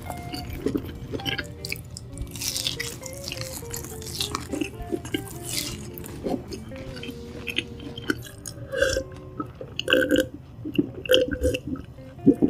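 Close-miked chewing of a fried mozzarella cheese stick: wet mouth clicks and smacking, with louder swallowing sounds near the end as a drink is gulped from a glass.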